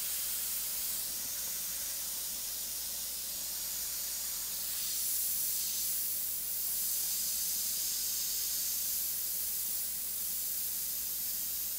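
Iwata HP-CS Eclipse gravity-feed airbrush spraying in a steady hiss of compressed air as candy yellow paint is laid along the lightning bolt's branches, swelling slightly a few times as the trigger is drawn back.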